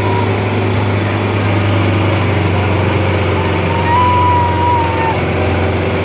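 Sonalika DI 750 tractor's diesel engine running hard and steady under heavy load, pulling a harrow through ploughed soil.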